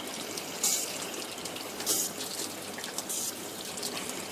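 Water running through a Godrej washing machine's U-sonic stain cleaner while it is switched on with a stained cloth inside, like a running tap, with brighter splashes about once a second.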